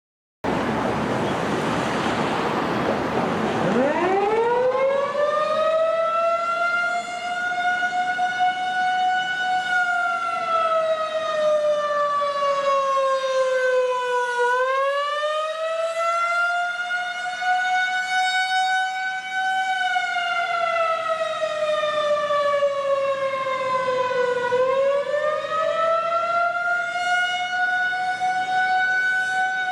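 Outdoor tornado warning siren starting up with a rush of noise. Its pitch climbs steeply over the first several seconds, then it sounds a wail, sliding slowly down and back up about every ten seconds.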